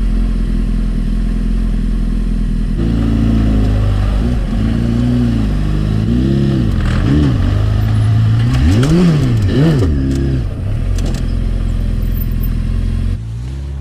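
Honda Fireblade's inline-four engine running at low speed. After about three seconds its note rises and falls several times as the throttle is opened and closed, with a few clicks and rattles around the middle. The sound drops away sharply near the end.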